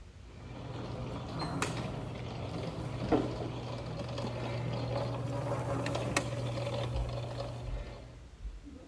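Miniature straw baler running: a steady low motor hum with mechanical clatter and a few sharp clicks, fading in at the start and out near the end.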